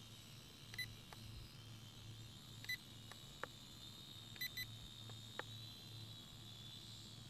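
Syma X5UW quadcopter's small motors and propellers whining faintly at a high pitch that wavers slightly with throttle. Four short electronic beeps cut through, the last two in quick succession, along with a few faint clicks.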